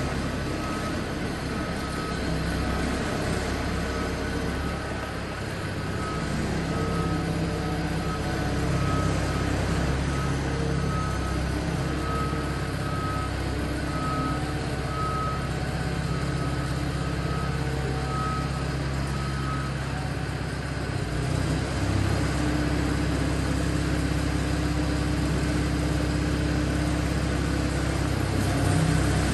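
Self-propelled hydraulic boat trailer's engine running steadily as it moves, with a repeating warning beep about every three-quarters of a second that stops about two-thirds of the way through; the engine note shifts a little after the beeping ends.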